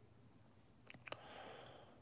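Near silence: quiet room tone, with two or three faint clicks about a second in.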